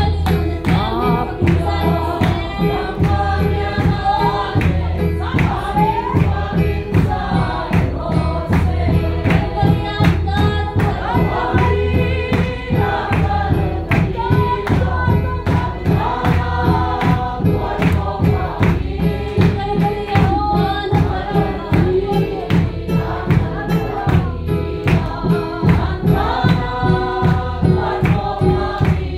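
A woman's lead voice through a microphone, with a congregation singing along, over an electric keyboard that keeps a steady, fast beat.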